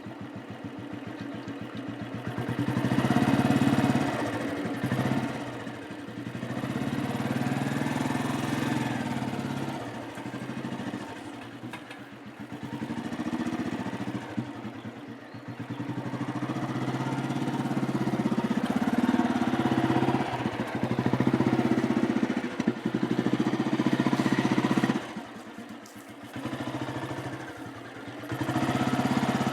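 Royal Enfield Bullet motorcycle's single-cylinder engine running, its exhaust beat swelling and easing off several times as it is revved and let back.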